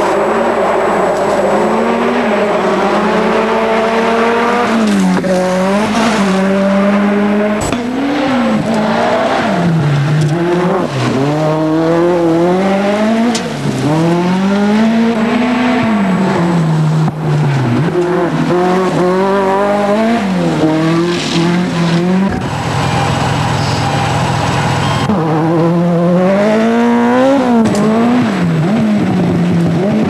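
Ford RS200 Group B rally cars' turbocharged four-cylinder engines at full throttle on a gravel stage, the pitch climbing and dropping again and again through gear changes and lifts off the throttle. There is a sharp crack about eight seconds in.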